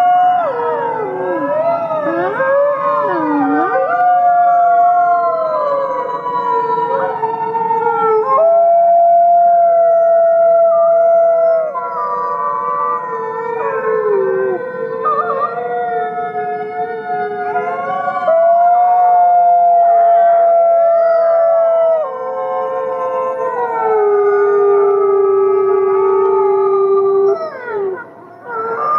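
A chorus of many gray wolves howling together: long overlapping howls at different pitches, some sliding up and down. One loud wolf's long, steady howls stand out over the rest, breaking off briefly near the end.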